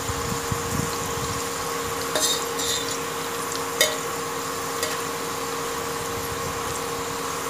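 Sliced onions and cashews sizzling as they fry in oil in a steel pressure cooker, stirred with a spatula that scrapes and clicks against the pot a few times. A steady hum runs underneath.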